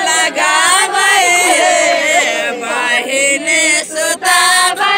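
A group of voices singing a North Indian folk wedding song, a man's voice leading. It is a gaali geet, a song that teases and insults the groom's side.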